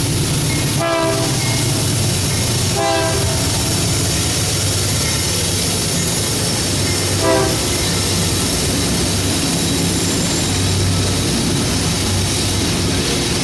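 A train rolling past with a steady low rumble and wheel clatter. Three short horn blasts sound about one, three and seven seconds in.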